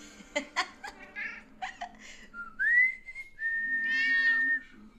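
Person whistling to a domestic cat: a short rising whistle, then a held whistled note, with the cat meowing back over the held note. A few short clicks come in the first two seconds.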